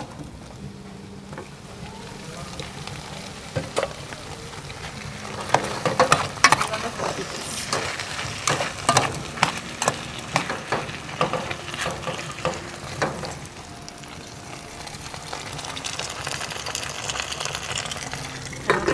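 A pan of potatoes and vegetables frying while a spoon stirs it, the spoon knocking and scraping against the pan in a run of quick clicks through the middle.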